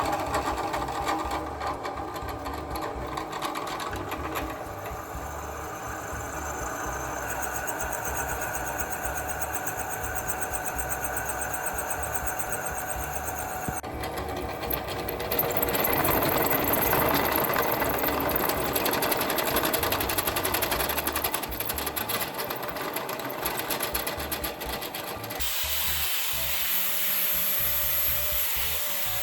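A power tool running continuously during metalworking. Its sound changes abruptly about halfway through and again near the end.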